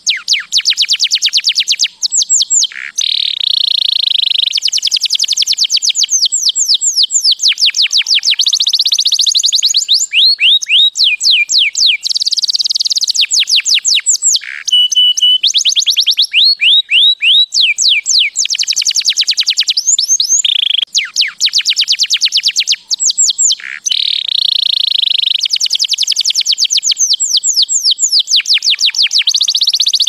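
Domestic canary singing its continuous song: rapid trills of repeated high notes, each trill running a second or two before it switches to a new one. A brief steady whistled note comes about halfway through.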